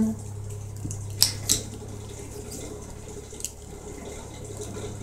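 Steady low hum under a hiss of background noise, with two sharp clicks close together a little over a second in.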